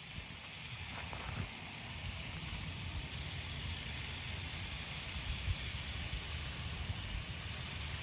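Long battery-powered JAKKS Pacific PowerTrains toy freight train, pulled and pushed by several small motorized diesel units, running over plastic track and a plastic bridge: a steady whirring hiss with a low rattling rumble and small ticks.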